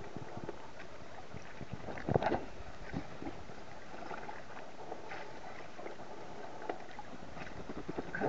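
Sea water lapping and sloshing around a shark-diving cage at the surface, with scattered small knocks and a louder knock about two seconds in.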